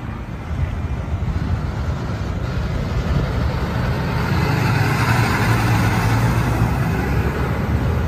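Diesel semi-truck hauling a stainless steel tanker trailer, its engine running as it drives past, growing louder as it comes close.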